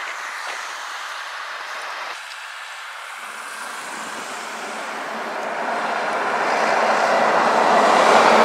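A semi-truck driving toward the camera, then a Volvo FH tractor-trailer approaching and driving past. Its engine and tyre noise grow steadily louder and are loudest near the end.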